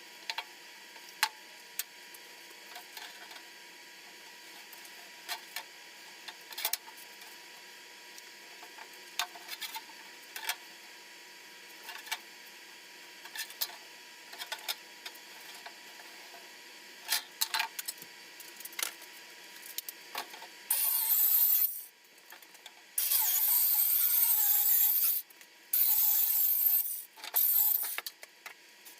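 Light knocks and clicks of material being handled, then, about two-thirds of the way in, a power saw cutting in several loud runs with short pauses between them.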